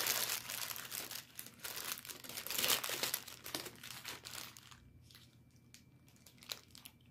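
Paper food wrapping crinkling and rustling as it is handled, dense for about the first four seconds, then dying down to a few scattered crackles.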